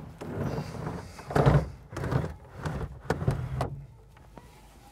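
Hawker Hurricane's sliding cockpit canopy pulled shut along its rails: a run of sliding rattles and knocks, the loudest clunk about a second and a half in, all over by about three and a half seconds.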